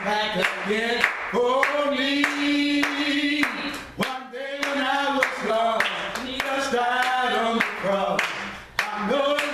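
A man singing a gospel song unaccompanied and clapping his hands steadily in time.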